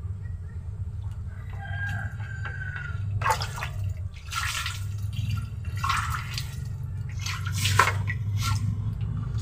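Water poured from a hand dipper onto the soil of a freshly potted bougainvillea, in several short splashing pours starting about three seconds in, over a steady low rumble.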